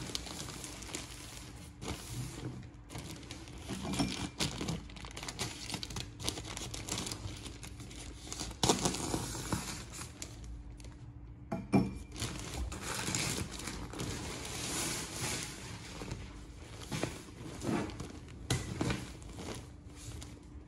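A plastic mailer bag is pulled and torn open by hand, crinkling and tearing, and the clear plastic wrap of the comforter inside rustles. The crackling is irregular, with frequent sharp louder crackles.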